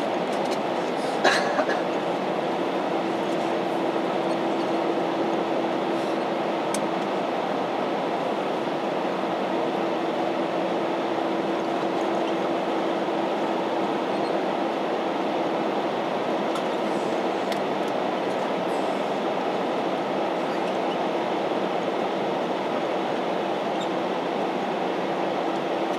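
Cabin noise of an Airbus A321-211 taxiing: a steady rumble of the airliner rolling with its CFM56 engines at taxi power. A steady hum comes in about three seconds in, and there is a single sharp knock about a second in.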